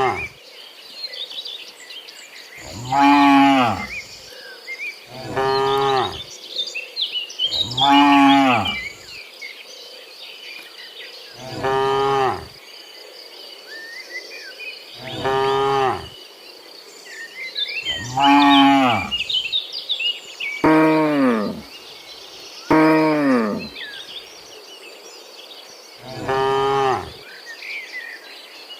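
Cows mooing: about nine long moos, each lasting about a second and spaced a few seconds apart, some sliding down in pitch at the end.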